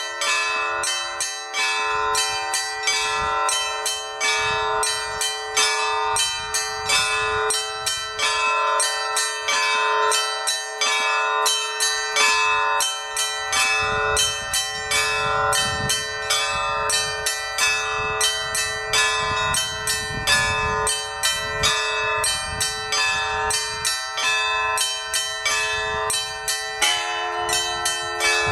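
Orthodox church bells ringing a continuous peal: small bells struck rapidly and rhythmically, several strikes a second, over the steady hum of larger bells.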